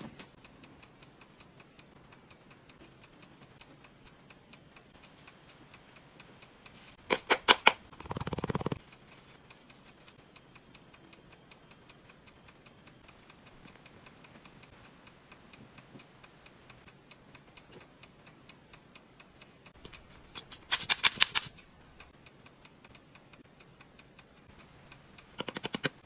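Faint, even ticking, broken three times by short bursts of loud rapid clicking; the first two bursts end in a brief hiss.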